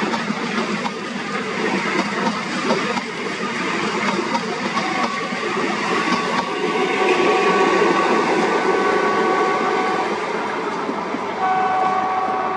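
Double-headed ALCo WDM-3A diesel locomotives hauling a passenger train, the engines working with the steady rumble and rattle of the train on the rails. About five seconds in, a multi-note locomotive horn chord sounds and holds for about five seconds, then sounds again near the end.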